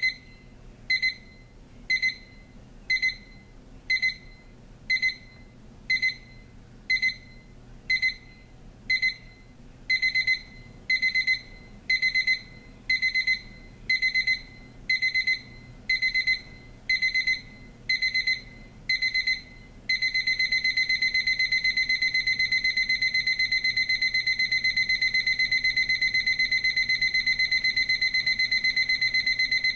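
Ken-Tech T-4697 atomic alarm clock's electronic alarm, a piercing high beep sounding about once a second. About ten seconds in, the beeps lengthen, and about twenty seconds in they run together into rapid, unbroken beeping. These are the escalating stages of its 4-stage ascending alarm.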